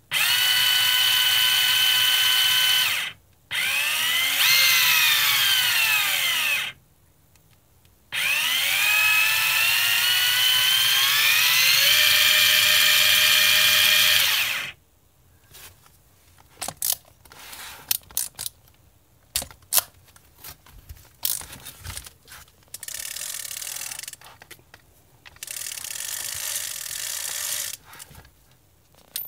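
Miya Epoch Command X-8S electric fishing reel's motor whining as it turns the spool. It holds one pitch at first, then speeds up and slows down, then climbs in steps to a higher speed before cutting off about halfway through. After that come scattered clicks and rattles of the reel being handled, with two short stretches of softer whirring.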